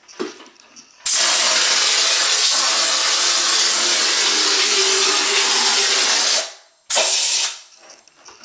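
Air-powered hopper texture gun spraying thinned joint compound onto drywall as orange-peel texture: a loud, even hiss of compressed air for about five seconds, cut off, then a second short burst about half a second later.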